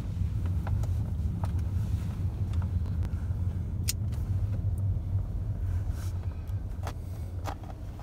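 Steady low road rumble inside a moving car, with a few sharp clicks from a plastic clamshell package being handled.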